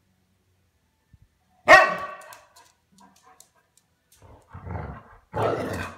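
A husky-type dog gives one sharp, loud bark about two seconds in, then two rougher, breathier barks near the end, while playing with a kitten.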